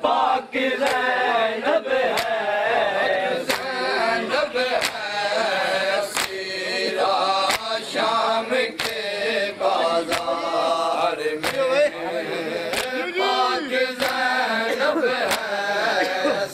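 Men chanting a noha in chorus while beating their chests in unison with open hands (matam). Sharp, even slaps come roughly every two-thirds of a second under the voices.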